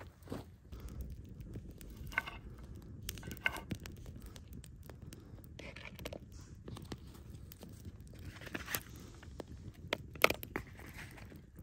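Campfire of dry grass and kindling burning in a stone ring, crackling and snapping irregularly over a low rush of flame. A few sharper knocks come near the end.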